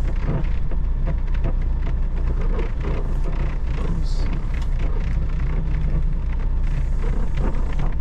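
Semi truck's diesel engine running steadily, heard from inside the cab, with scattered light clicks and rattles over it.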